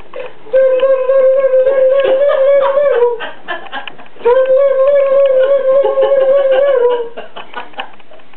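A small wind instrument tootled in two long held notes on the same steady pitch, each dipping slightly in pitch as it ends.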